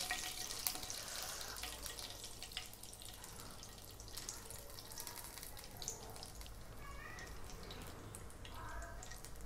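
Cumin seeds sizzling in hot oil in a nonstick pan: a faint steady hiss with scattered little pops and crackles. The seeds are crackling, the sign that the oil is hot enough for the next spices.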